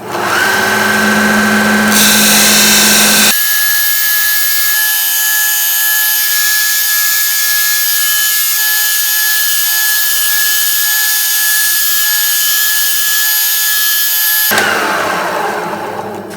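Bucktool 1x30 bench belt sander's 1/3 hp direct-drive motor starting up and running with a fine non-woven conditioning belt. About three seconds in, a steady hiss of the belt working against a workpiece joins the motor's steady whine. Near the end the hiss stops and the sander is switched off, its whine falling as the motor coasts down.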